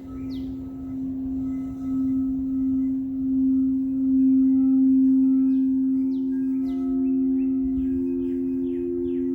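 Singing bowls ringing with two steady low tones that slowly swell and fade, the higher one growing louder over the last few seconds. Birds chirp in quick falling notes right at the start and again from about the middle on.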